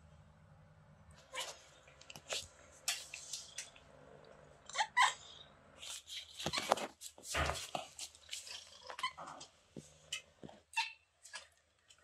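A kitten giving short, high chirping calls, the little 'beeps' it makes, as a few separate calls. Scattered clicks and knocks sound among them, with a dull thump a little after the middle.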